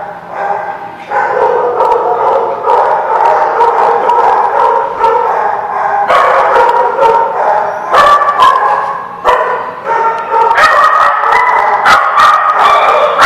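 Several small dogs barking and yipping over one another without a break, growing busier and higher-pitched in the second half.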